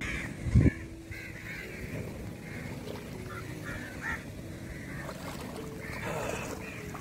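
Water sloshing and splashing around a person's legs as he wades through knee-deep river water, with a heavy low thump about half a second in.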